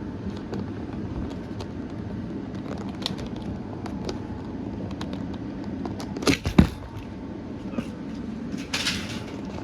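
Handling noise as the camera and model are moved about: scattered small clicks over a steady low hum, a cluster of sharp knocks about two-thirds of the way through, and a short rustle near the end.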